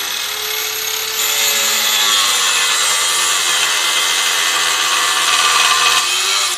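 Small electric abrasive cut-off saw cutting a metal bar. The motor whines at full speed, and about a second in the abrasive disc bites into the metal and grinds steadily through it until near the end.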